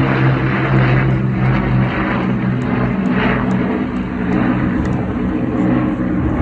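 Piston-engined Second World War aircraft flying overhead: a loud, steady propeller drone that eases a little in the second half as they move away.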